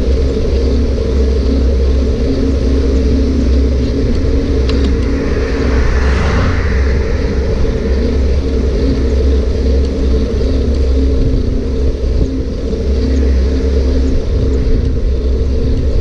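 Steady low rumble and hum of wind and riding noise on a camera mounted to a moving bike. A car passes about six seconds in, swelling and fading as it goes by.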